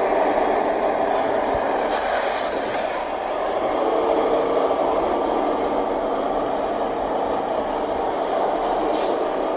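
A 2018 New Flyer XD40 transit bus running, its Cummins L9 diesel engine heard with steady drivetrain and road noise. Brief higher hisses come about two seconds in and near the end.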